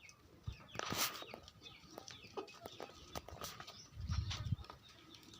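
Chickens clucking and small birds chirping, with a short rustling scrape about a second in and a few low thuds around four seconds in.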